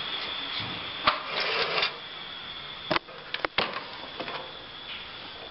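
A plastic consumer-unit enclosure and its papers being handled: a few sharp clicks and knocks, with a rustle of paper around a second and a half in, over a faint steady high whine.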